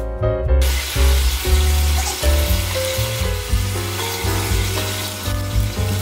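Broth boiling in an electric pressure cooker's open pot, an even bubbling hiss, under background music with a strong bass line.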